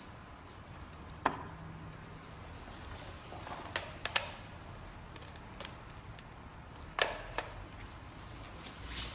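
A few sharp clicks and taps, spaced irregularly: one about a second in, a pair around four seconds and another pair around seven seconds, over a faint steady low hum.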